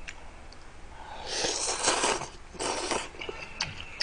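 A person slurping noodles from a bowl of beef noodle soup: a long slurp starting about a second in, then a shorter one.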